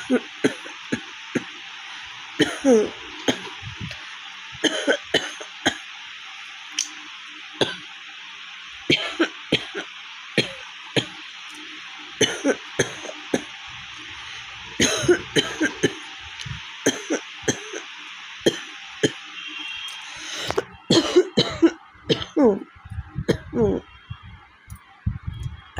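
A woman coughing again and again, short single coughs every second or two with some throat clearing, growing denser in the last few seconds. The coughing comes from a heavy cold and a raw, sore throat. A steady hiss lies under it and stops about twenty seconds in.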